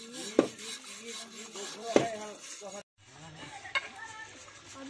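Knife blades scraping the scalded skin of a slaughtered pig, with two sharp, louder strokes about half a second and two seconds in. Voices talk in the background.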